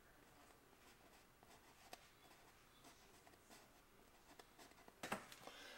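Near silence with the faint scratch of a small filbert brush working oil paint on a stretched canvas: scattered light ticks, a sharp tick about two seconds in, and a louder brief cluster of scratchy strokes near the end.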